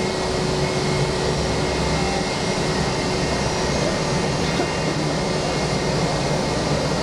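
Steady jet aircraft noise: an even rush with faint constant whining tones and no change in level.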